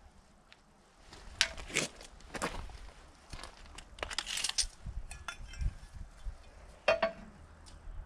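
Steel parts being handled and set against each other: a handful of short metallic clinks and knocks, spread through the few seconds, with rustling in between.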